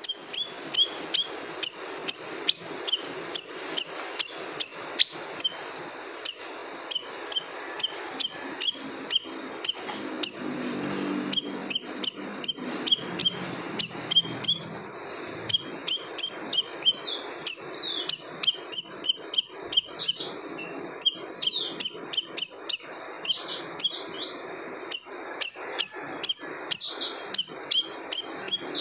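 Siri-siri bird calling: a long run of short, sharp, high-pitched chirps, about two a second, with a couple of brief pauses.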